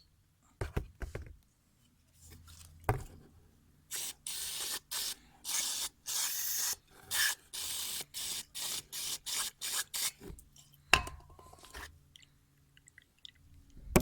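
Aerosol carb cleaner sprayed in a quick string of short hissing bursts, about a dozen over six seconds, to clean the gunk out of an idle air control valve. A few knocks of the can and part being handled come before and after the spraying.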